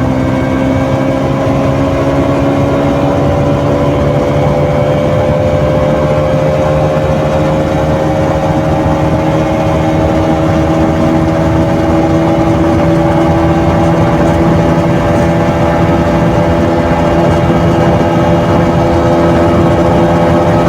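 KTM RC 200's stock exhaust, a 200 cc single-cylinder engine, pulling steadily under way in one gear, its pitch rising slowly as the motorcycle gains speed.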